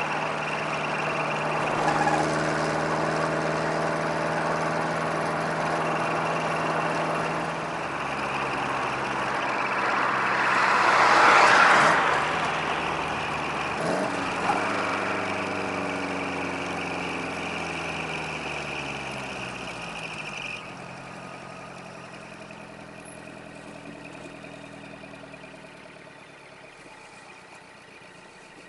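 Subaru Sambar kei truck's four-cylinder engine through a homemade split-manifold dual exhaust with Caton-style mufflers, heard from inside the cab: a steady low rumble while cruising. About eleven seconds in a louder rushing noise swells and passes, then the engine note falls steadily away as the truck slows to a stop.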